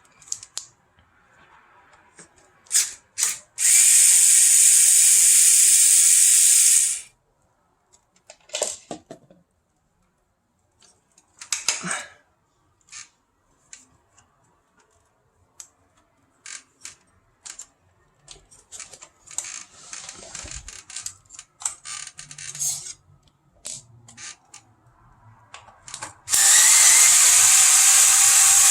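Cordless electric screwdriver running in two steady bursts of about three seconds each, about four seconds in and again near the end, most likely driving out the tower fan's casing screws. Short clicks and taps of parts being handled come between the runs.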